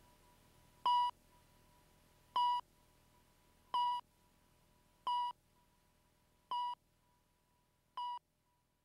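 Film countdown leader beeps: six short, steady beeps about one and a half seconds apart, each a little quieter than the last, over a faint hum that dies away near the end.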